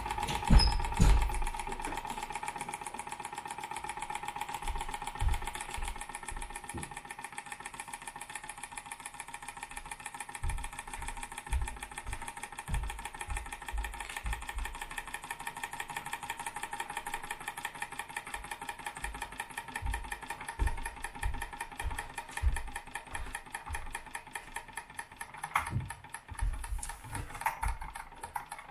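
Wilesco D20 toy steam engine's single oscillating cylinder running, a fast, even chuffing of exhaust steam with a faint steady whine over it. The engine is running down as its boiler water runs low. Irregular low thuds come through at intervals.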